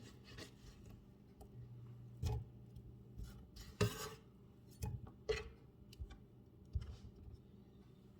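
Scattered light knocks, clicks and rubbing from dishes and utensils being handled in a kitchen, with a brief low hum in the first few seconds.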